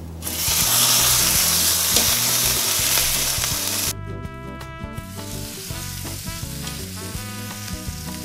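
A raw steak sizzling hard as it sears on a pool of molten tin. The sizzle drops away for about a second near the middle and comes back quieter, with background music underneath.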